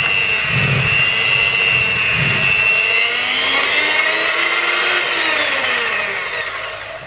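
Electric hand mixer whirring as its beaters whisk cake batter in a plastic bowl, with a low rhythmic thudding in the first few seconds. About three seconds in the whine rises in pitch, then falls away and fades as the mixer slows near the end.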